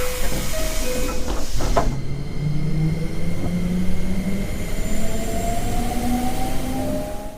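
Electric train pulling away, its motor whine rising steadily in pitch as it picks up speed over a rumbling of wheels. In the first second or so a two-note tone alternates, and there are a couple of knocks just before the acceleration begins. The sound cuts off abruptly near the end.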